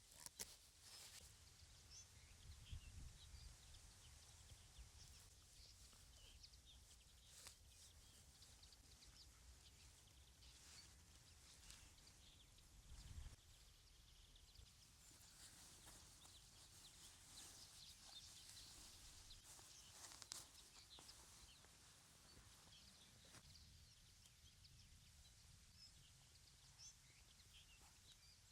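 Near silence: faint outdoor ambience with scattered soft rustles and clicks.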